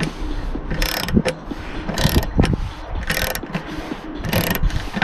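Socket ratchet wrench being worked on a bolt of a van roof bracket, its pawl clicking in four short bursts about a second apart.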